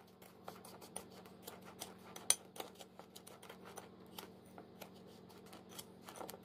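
Metal spoon stirring and scraping a brown sugar, honey and lemon scrub in a ceramic bowl, sped up: a fast run of small clicks and gritty scrapes over a faint steady hum.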